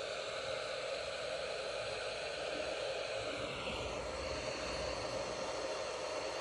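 Steady hiss with no distinct knocks or clicks; it eases slightly about four seconds in.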